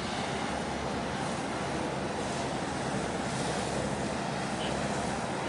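Steady wind noise on the microphone and water noise, with a low steady hum underneath.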